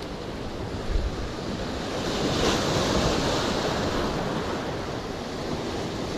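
Sea surf washing and breaking among breakwater rocks, swelling louder as a wave comes in about two seconds in, with wind buffeting the microphone.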